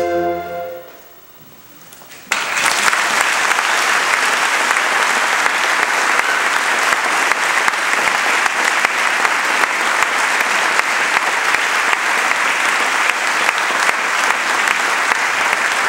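A flute ensemble and band's last held chord dies away. After a second or so of hush, the audience breaks into applause that continues steadily.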